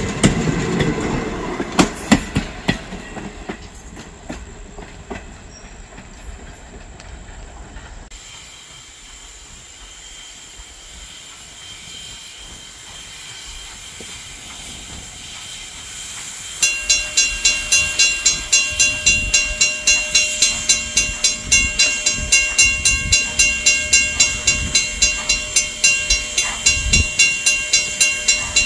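Passenger cars rolling over a grade crossing, wheels clacking over the rail joints, fading away within the first few seconds. After a quiet stretch, a railroad crossing bell starts up suddenly and rings rapidly and steadily, about four strokes a second, as a train approaches the crossing.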